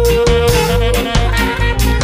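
Ska band playing an instrumental passage: a saxophone holds one long note over a steady drum beat, bass and guitar, the note ending just before the close.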